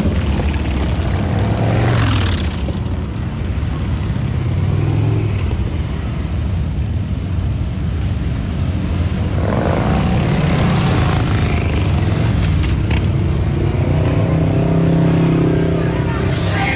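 Several motorcycle engines running, their pitch rising and falling as they rev or move off.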